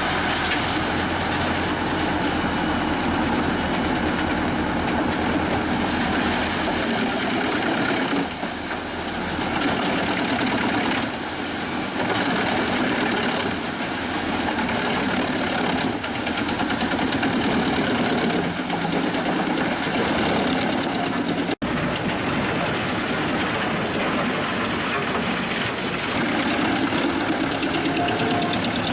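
Pezzolato PTH 1000/1000 G drum wood chipper running off the power take-off of a 360 hp New Holland tractor, a loud, steady, dense mechanical din of drum and tractor engine. It briefly eases a little twice in the first half and cuts out for an instant about two-thirds of the way through.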